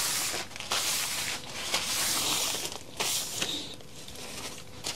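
Paper shop towel rubbed across a metal workbench top in several wiping strokes, each a short hissing scrape; the strokes die down after about three and a half seconds.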